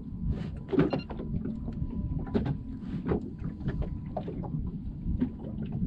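Water lapping against the hull of a small drifting boat, over a steady low rumble, with a run of small clicks and knocks from tackle being handled.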